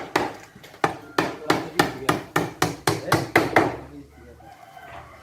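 Hammer blows struck in quick succession, about four a second, each with a short ringing after it. They stop a little over two-thirds of the way through.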